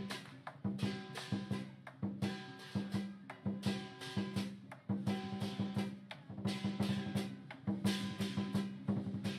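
Lion dance percussion: a big drum beaten in a fast, driving rhythm with clashing cymbals and a ringing gong, many strokes a second.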